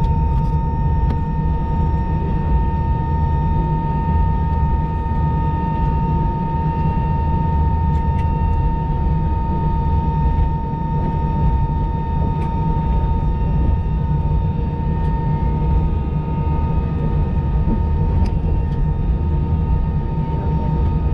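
Airbus A319 cabin noise while taxiing: the jet engines run at idle with a steady low rumble and a constant high whine, heard from inside the cabin.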